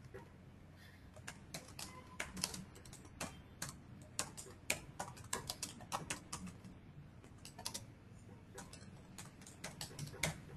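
Computer keyboard typing: quick, irregular key clicks at a low level, over a low steady electrical hum.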